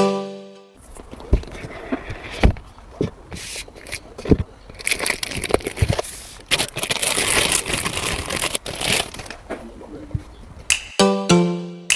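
Handling noise: scattered sharp clicks and knocks over a crackling, rustling hiss, densest in the middle. Background music with plucked notes returns near the end.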